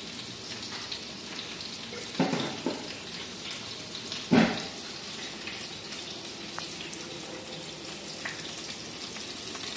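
Steady sizzle of beef patties frying in a pan beside a simmering pot of bean stew. A few brief knocks break in, the loudest about four and a half seconds in.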